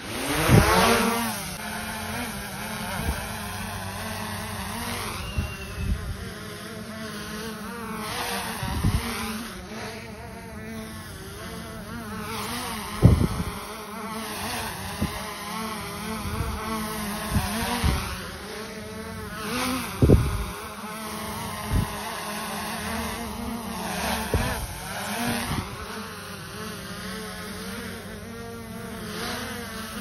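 DJI Air 2S quadcopter on Master Airscrew propellers: its motors spool up with a rising whine as it lifts off, then a steady buzzing drone as it hovers and moves, the pitch wavering. A few short thumps cut in, the loudest about thirteen seconds in.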